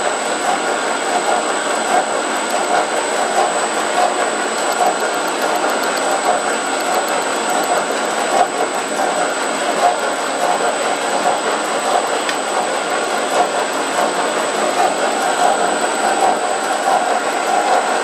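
Metal lathe running at speed with its cutting tool on the shoulder of a threaded brass part: a steady machining whir with a thin, constant high whine.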